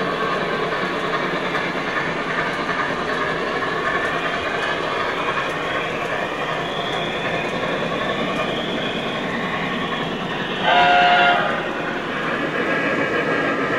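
O gauge model trains rolling steadily over the track, a continuous rumble and clatter of wheels. Near the end a train whistle sounds once for about a second, a chord of several steady tones.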